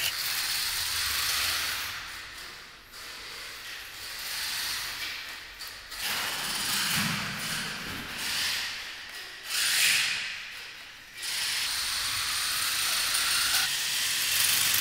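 A home-built 1/12 scale electric radio-controlled car driving on a smooth floor: its motor and gears whir with tyre noise, rising and falling several times as it speeds up, passes and slows.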